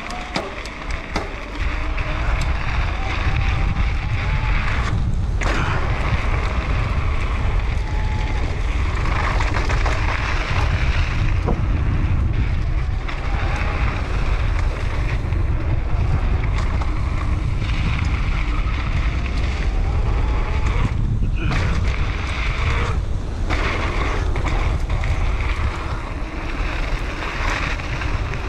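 Heavy wind noise on the microphone of a mountain bike's point-of-view camera during a downhill run, mixed with tyres rolling over a dirt trail and occasional clicks and rattles from the bike. The noise grows louder about two seconds in.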